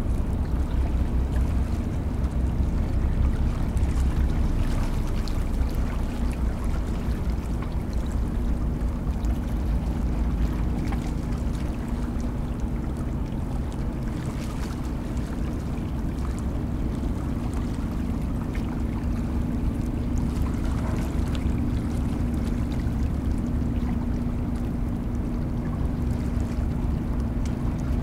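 Harbour tugboat's diesel engines running steadily: a deep low rumble with a steady hum above it.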